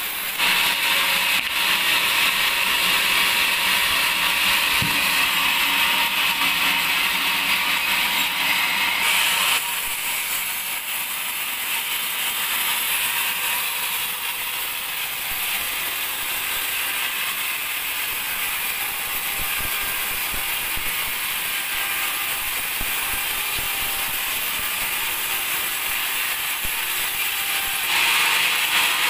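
Band sawmill running and sawing a teak log, a steady noisy cutting sound. It is louder for the first nine seconds or so and again near the end, and quieter in between.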